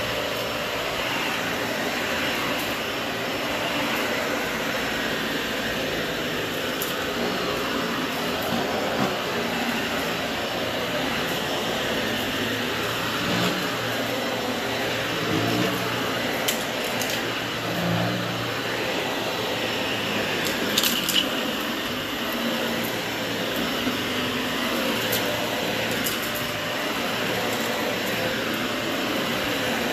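Dyson upright cyclone vacuum running steadily as it is pushed over carpet, with a few short sharp clicks and rattles of grit going up the cleaner head, the loudest about 21 seconds in.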